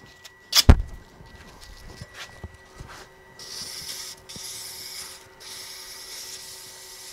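Abrasive paper held against a spinning wooden handle on a wood lathe: a steady hissing from about three seconds in, broken twice briefly. Before it, one sharp knock about half a second in.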